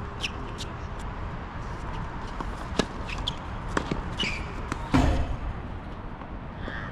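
Sharp knocks of tennis balls bouncing and being struck on a hard court, scattered irregularly, with a louder thump about five seconds in and a couple of short squeaks.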